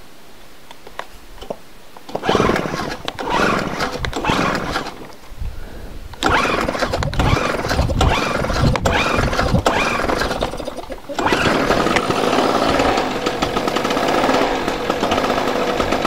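Swiss Kraft SK1800 suitcase generator's small petrol engine being pull-started: the first pulls bring short, uneven bursts as it tries to catch, then about eleven seconds in it settles into a steady run.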